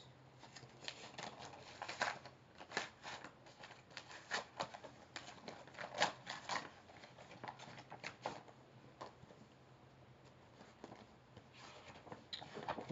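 Paper mail being torn open and handled: irregular crackling, rustling and ripping of paper, the loudest rip about six seconds in.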